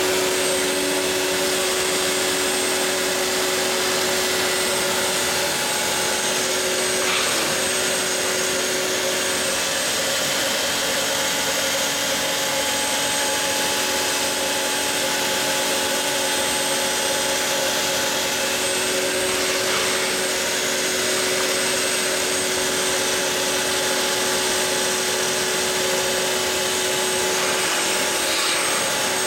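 Router spindle on a Mostly Printed CNC machine running at speed with a steady high whine while its bit cuts a groove along a curved profile in a fibreboard panel.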